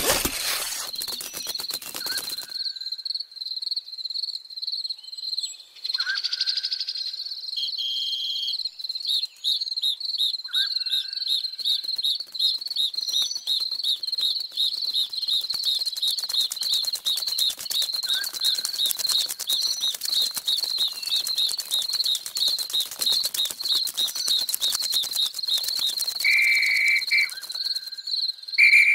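Insect sounds: a steady high-pitched chirring trill that pulses in a regular rhythm, over fast fine ticking, with a few short chirps scattered through.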